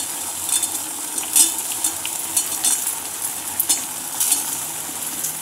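Jaggery syrup boiling hard in a stainless steel pan: a steady bubbling crackle, with a few short clicks of a steel spoon against the pan.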